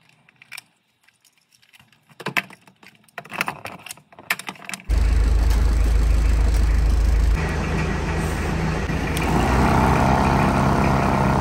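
Handling clicks and knocks, then about five seconds in a portable 12 V twin-cylinder air compressor switches on and runs steadily with a loud, low hum. It is pumping air into a punctured tyre.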